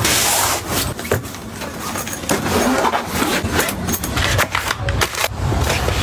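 Handling noises: a brief rush of noise, then irregular clicks and rustles as objects are moved about.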